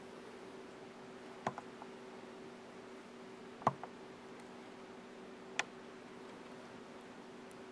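Quiet room tone with a faint steady hum and three short sharp clicks, about two seconds apart.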